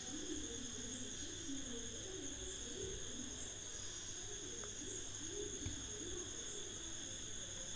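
Dove cooing softly over and over, low rounded coos about once a second, over the steady high-pitched chirring of crickets.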